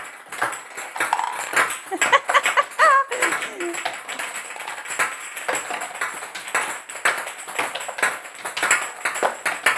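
Small plastic balls clattering against the plastic Connect Four Action board and bouncing on the table and tiled floor: many quick, irregular taps and knocks throughout. A brief high voice rises in pitch about two to three seconds in.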